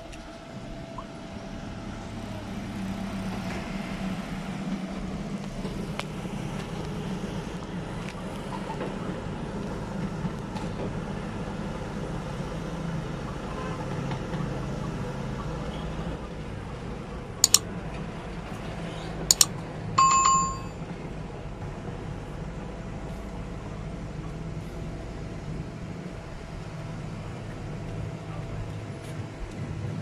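Tracked excavator's diesel engine running steadily as the machine moves. About two-thirds of the way through come two sharp clicks, then a short bell-like ring.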